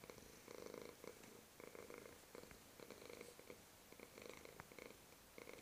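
Domestic cat purring faintly, the purr swelling and easing about once a second with each breath in and out.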